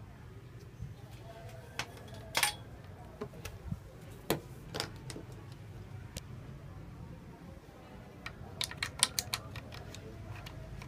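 Scattered light clicks and taps over a steady low hum, with a quick run of about eight clicks near the end.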